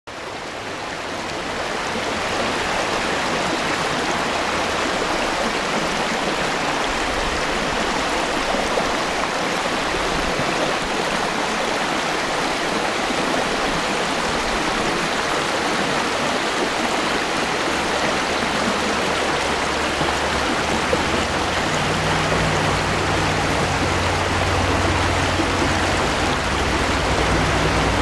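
Mountain stream rushing and splashing over rocks in small cascades, a steady rush of water that fades in over the first couple of seconds. A low steady hum comes in underneath about three-quarters of the way through.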